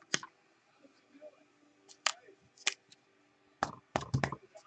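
Trading cards and plastic card holders being handled on a table: a few sharp clicks and snaps spaced out, then a quick cluster of heavier knocks near the end.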